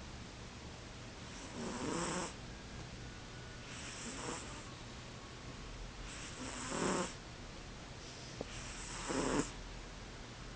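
A pet cat snoring: four snores, each under a second long, about two and a half seconds apart.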